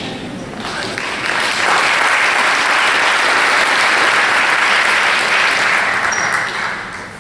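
Audience applauding in an auditorium. The clapping swells about a second in, holds, and dies away near the end.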